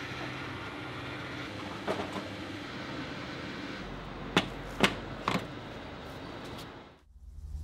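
Steady background hum and hiss at a fuel pump, with a single knock about two seconds in, then three sharp clicks about half a second apart as a fuel nozzle is taken from the pump. The sound fades out near the end.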